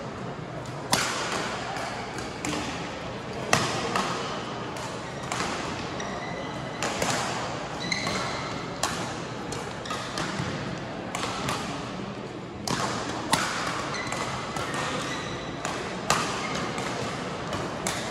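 Badminton rally in a large hall: sharp racket-on-shuttlecock hits every second or so, over a steady background murmur of voices and play from neighbouring courts.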